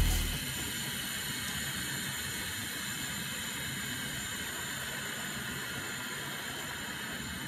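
RC car drivetrain spinning on its bearings: a steady whirring hiss with a few faint high tones, even in level throughout.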